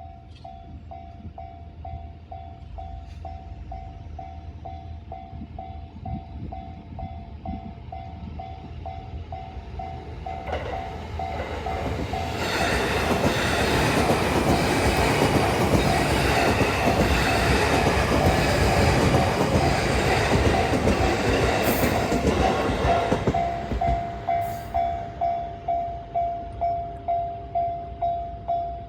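Japanese level-crossing warning bell ringing in a steady two-tone ding about twice a second, while an E233 series 6000 electric commuter train runs through the crossing. The train's running noise builds from about ten seconds in, is loudest for about ten seconds, then falls away, and the bell stops at the very end.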